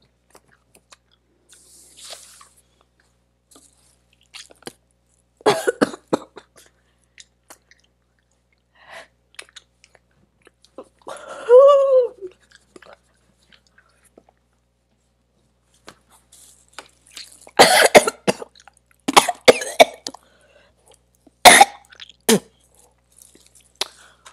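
A person coughing and clearing their throat in scattered short fits, heaviest in the last third, with one drawn-out pitched 'ooh' about halfway through: a reaction to the burning heat of a very spicy gumball being chewed.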